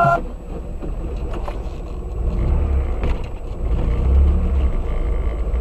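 Music stops abruptly just as it starts, leaving the low rumble of a car driving: engine and road noise, with a faint steady high-pitched whine.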